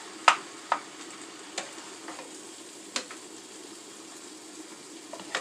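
Vegetables sizzling in a hot pan while being stirred, with about five sharp clacks of the utensil against the pan, the loudest just after the start.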